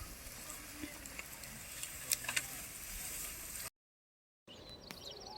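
Faint outdoor field ambience: a steady hiss with a few light clicks and knocks. It cuts to dead silence for under a second, then a bird chirps in a quick run of high notes.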